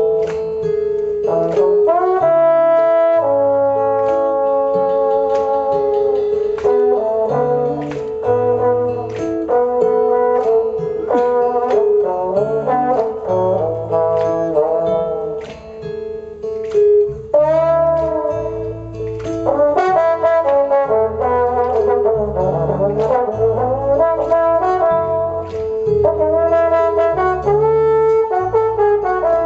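Live jazz-style trombone playing a melody, with held notes and notes that swoop up into pitch, over a band of bass line, keyboards and drums.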